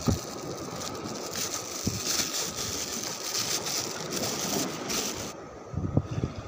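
Thin plastic bag crinkling and rustling as it is handled and untied, over a steady rush of wind and waves. The rustling stops about five seconds in, followed by a couple of low bumps.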